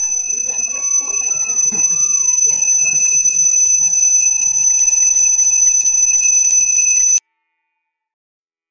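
A high-pitched bell ringing continuously over flute music, cutting off abruptly about seven seconds in.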